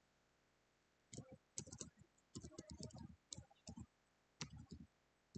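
Typing on a computer keyboard: irregular runs of key clicks beginning about a second in, with short pauses between the runs.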